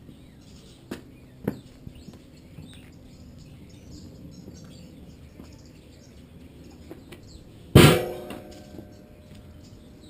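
Two light knocks, then a single loud bang that rings on briefly with a clear pitch before dying away.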